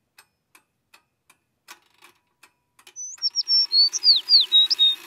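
Faint, regular ticking, about two and a half ticks a second. About three seconds in, a run of louder, quick, high chirps, mostly falling in pitch, begins over a low steady hum.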